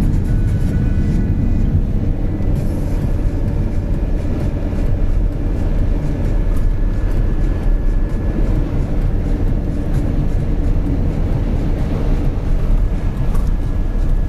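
A car driving on a highway: a steady, low rumble of engine and road noise.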